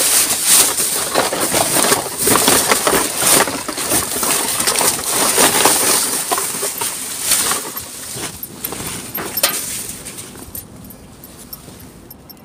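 Plastic bags rustling and crinkling as a hand rummages through them, a dense crackle that dies down over the last few seconds.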